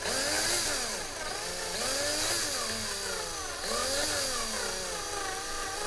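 Small power drill drilling out a diecast car's base rivet. The motor whine rises and falls in pitch every couple of seconds as the speed is varied.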